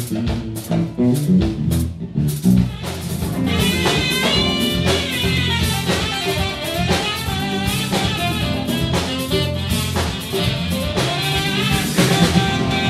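Live band music: a five-string electric bass and a drum kit play a groove, and a higher melodic lead line comes in about three and a half seconds in.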